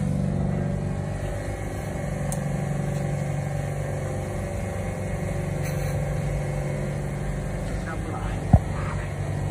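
Electric button bit grinding machine running with a steady mechanical hum. A single sharp click comes about eight and a half seconds in.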